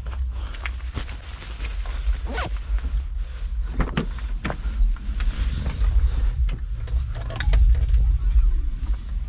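Scattered clicks, knocks and rustling of hands and parts being handled while wiring is worked on inside a car, over a steady low rumble.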